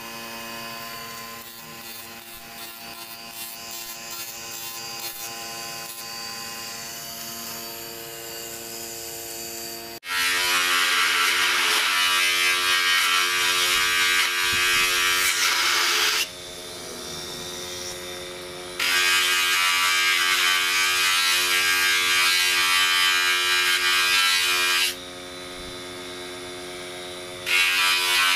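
Electric motor running a buffing wheel with a steady hum while a hammered brass disc is polished against it. About ten seconds in, the loud hiss of the brass pressed hard on the wheel starts, cutting out twice for a couple of seconds as the disc is lifted off, then resuming.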